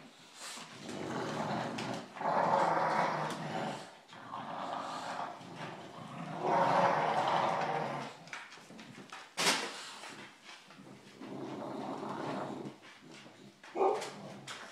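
Two bulldogs play-growling in rough bursts of a second or two each while tugging a rope toy between them. A sharp click comes about halfway through.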